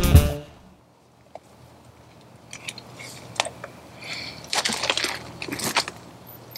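Background music cuts out in the first half-second. After that come light rustling and small plastic clicks as a CPAP mask and its corrugated hose are handled, busiest in the middle and later part.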